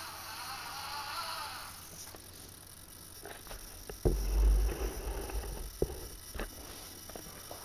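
Small electric motor and gears of a 6x6 RC scale truck whirring for the first two seconds. About four seconds in comes a loud low thump and rumble, followed by scattered knocks and clicks.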